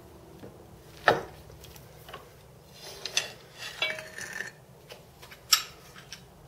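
Metal clinks and knocks as a steel variable speed drive pulley, its needle bearing just pressed in, is freed from a cast-iron bench vise and lifted out: a sharp knock about a second in, a cluster of clinks with a brief ring around the middle, and another sharp clink near the end.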